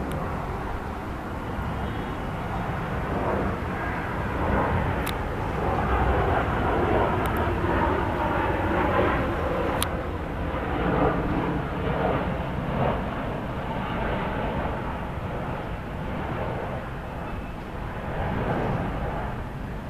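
Jet engines of an Aeroméxico Boeing 737 on landing approach with its gear down: a steady broad rumble that swells through the middle and eases off toward the end.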